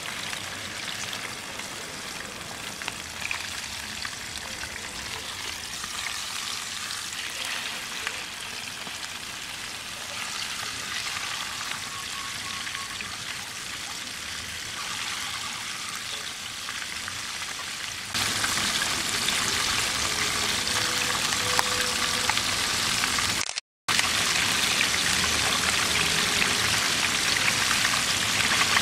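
Hot oil sizzling steadily around a whole flour-dredged cabrilla just lowered in to deep-fry. The sizzle gets louder about two-thirds of the way through, with a split-second gap shortly after.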